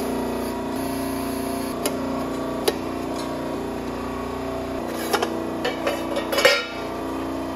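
A forming press's motor and pump hum steadily while the die draws a steel disc into a pan, with a couple of sharp metallic pings. About five seconds in come clattering metal knocks and a louder scrape as the formed steel pan is pulled out of the die.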